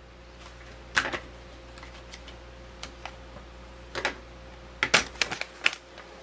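Irregular sharp clicks and taps of small hard objects being handled and set down on a tabletop, in small clusters, the busiest run about five seconds in.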